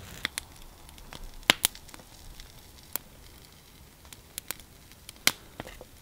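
Scattered sharp clicks and light crackles as a split, roasted deer leg bone is pried apart by hand, bone shards clicking against each other and against a wooden board.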